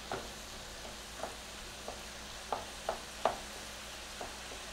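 Ground meat and chopped vegetables frying on high heat in a stainless steel sauté pan, with a faint steady sizzle. A wooden spoon stirring the mixture scrapes and knocks against the pan about seven times, at irregular intervals.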